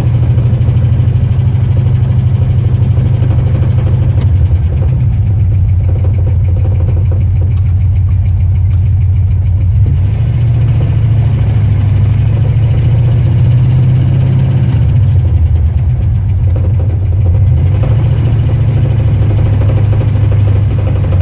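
1974 Ford F250 pickup's engine running at a steady idle, a loud, continuous low rumble.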